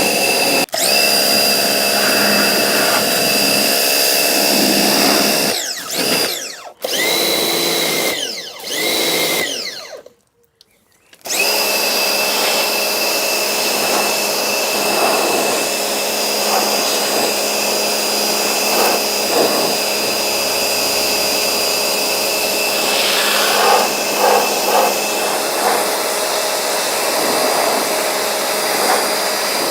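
An electric motor of a cleaning machine running with a steady whine. Between about 6 and 10 seconds in it slows and speeds up several times, then stops for about a second and starts again. Light clattering is heard over it near the end.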